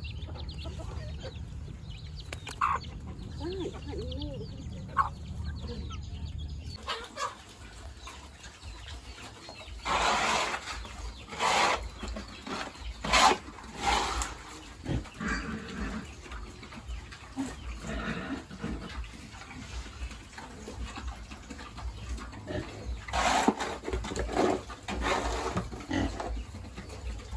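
Pigs grunting and squealing in loud noisy bursts, with chickens clucking.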